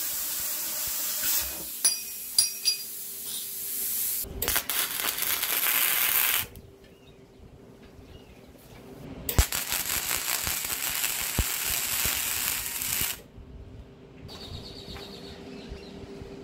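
Plasma cutter cutting through the steel end of an air compressor tank, a steady loud hiss of the cutting arc and air jet with a few sharp pops about two seconds in. It stops about six and a half seconds in, starts again about three seconds later, and cuts off again about four seconds after that.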